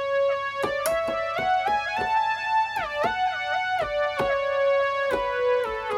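Korg Modwave synthesizer playing an ARP Quadra-style 'prog lead' patch: a single-note melody on a pulse-width and sawtooth tone, with the pitch gliding between some notes.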